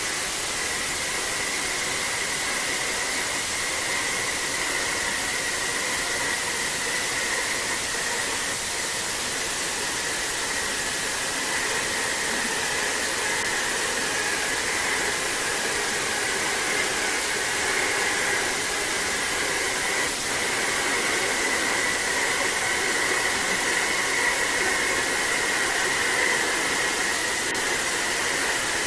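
Steady hiss of static-like white noise that switches on abruptly, with a faint higher-pitched band running through it.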